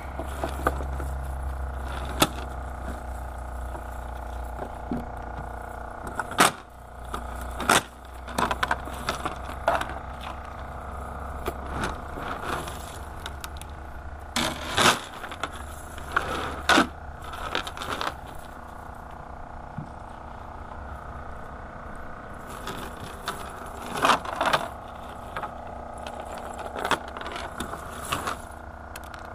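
Scattered knocks, clinks and scrapes of fishing gear handled in a small boat, over a steady low hum that weakens about halfway through.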